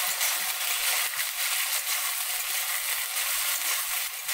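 Potato cubes and chickpeas frying in hot mustard oil in a pan: a steady sizzle with light crackling.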